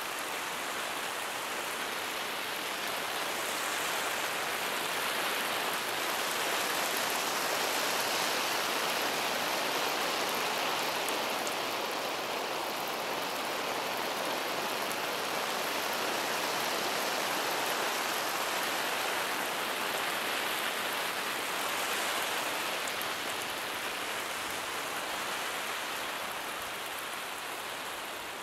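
Lawn sprinkler spraying water, a steady hiss of drops pattering down that swells a little louder through the middle and eases off again near the end.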